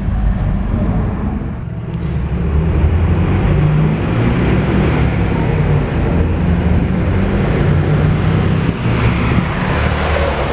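Street traffic with a motor vehicle's engine running close by: a steady low rumble that grows a little louder about two seconds in.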